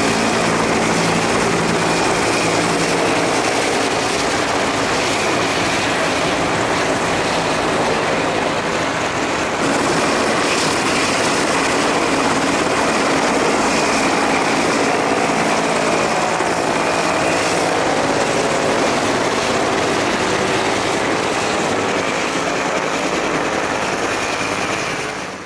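Military helicopters' turbine engines and main rotors running loud and steady, an AH-1S Cobra and a UH-1J Huey flying low passes with a helicopter turning its rotor close by, a thin steady whine over the rotor noise. The sound cuts off abruptly at the very end.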